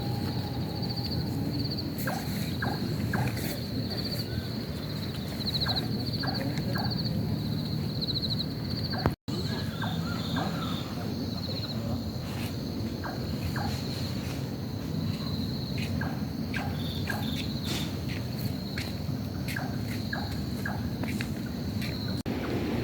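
Outdoor ambience with animal calls: a high, pulsing trill that repeats over and over, and many short chirps over a steady low rumble. The sound cuts out briefly about nine seconds in.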